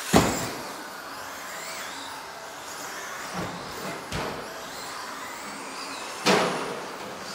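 RC off-road cars running on the track, their motors whining up and down in pitch. Sharp knocks just after the start and again about six seconds in, the first the loudest, with two smaller knocks in between.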